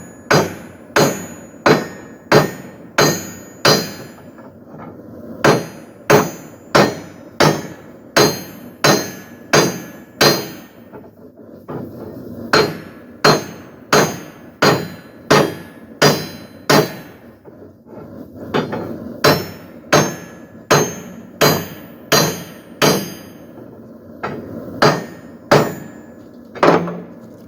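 Blacksmith's hammer striking hot steel on an anvil while forging a poleaxe head: a run of sharp, ringing blows, about one and a half a second, broken by a few short pauses.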